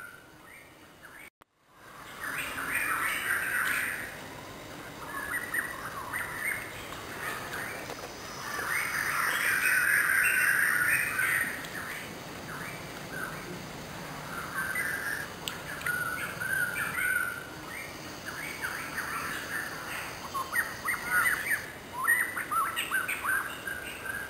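Wild birds chirping and calling in the trees: many short calls throughout, with a denser, louder stretch of chatter around the middle.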